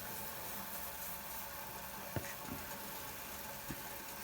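A steady hum over an even hiss, with a few faint clicks, one about two seconds in and another near the end.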